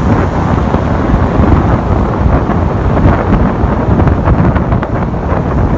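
Loud wind rumbling and buffeting against a phone's microphone held out of the window of a moving taxi.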